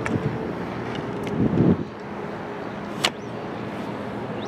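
Steady outdoor background noise on a field hockey pitch, with a brief low rumble just after a second in. About three seconds in comes a single sharp crack, a hockey stick striking the ball.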